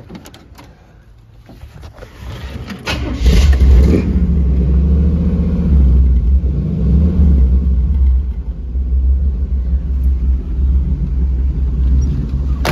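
The 1939 GMC truck's 350 V8 with a Holley four-barrel carburettor cranks on the starter, catches about three seconds in with a brief rev, then settles into a steady idle that sounds real nice.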